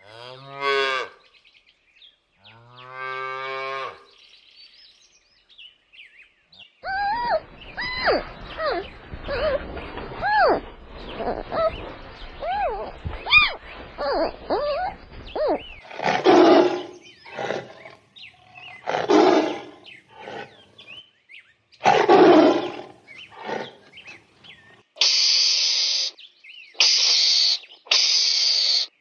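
A series of animal calls. First a cow moos twice. Then a red panda makes a long run of quick high squeaks and chirps, followed by several louder, rougher calls. Last comes a run of four loud, harsh hissing bursts from a mongoose.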